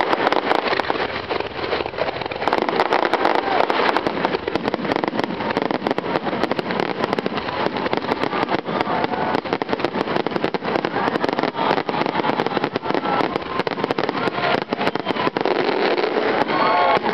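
Fireworks going off, with many sharp cracks and pops scattered over a steady, dense background din.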